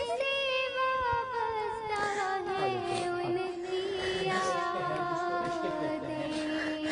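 A solo voice singing a devotional Urdu naat, drawing out one long note that slowly sinks in pitch with small wavering ornaments.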